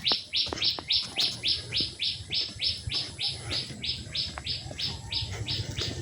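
A bird calling in a fast, even series of short, high, slightly rising notes, about four a second, fading away near the end.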